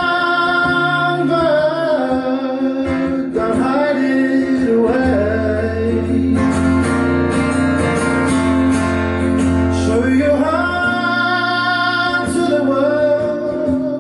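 Live acoustic song: an acoustic guitar accompanies long, held sung notes that glide from pitch to pitch without words.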